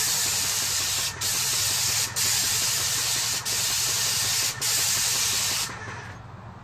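QTech airless paint sprayer gun with a 517 tip spraying masonry paint onto a wall: a loud steady hiss, broken by four brief gaps, that cuts off near the end.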